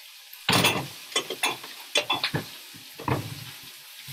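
Kitchenware clattering: a string of sharp knocks and scrapes, the first the loudest, over the faint sizzle of vegetables cooking in a frying pan.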